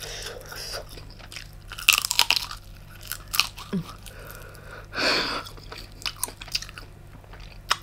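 Mouth chewing and biting into giant black tiger prawn meat, with crisp crunches and wet chewing clicks; the loudest crunches come a little under two seconds in and again about three and a half seconds in.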